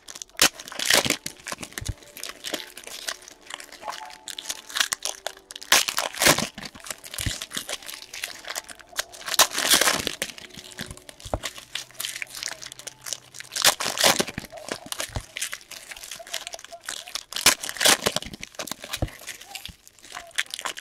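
Foil wrappers of basketball card packs crinkling and tearing as the packs are handled and ripped open, with louder bursts of crackling about every four seconds.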